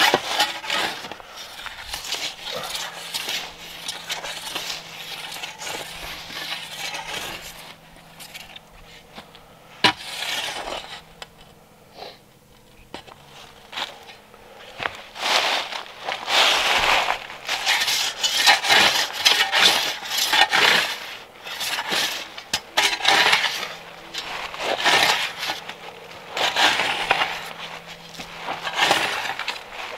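A shovel scraping and scooping soil and crackling leaf litter in repeated irregular strokes while levelling ground, with a sharp knock about ten seconds in.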